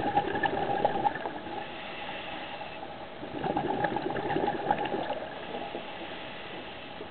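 Scuba regulator exhaust bubbles heard underwater: two loud stretches of crackling, gurgling bubbles, the second starting a little over three seconds in, with quieter stretches between them.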